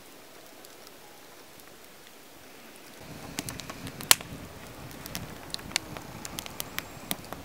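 Irregular sharp crackles and pops over a steady hiss; the hiss gets louder and the crackles come thicker about three seconds in, with one louder pop about a second after that.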